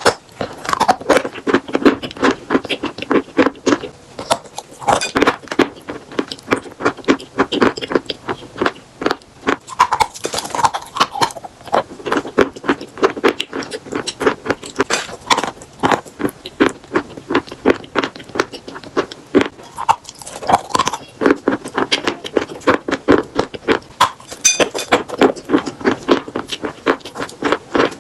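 Close-miked chewing of eating chalk and chalk paste: rapid, crisp crunches in runs with brief pauses, mixed with wet mouth sounds.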